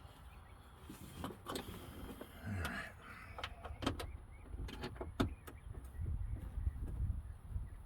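Scattered clicks, taps and knocks as screws are started by hand and the door lock parts are handled inside a car door, over a low rumble.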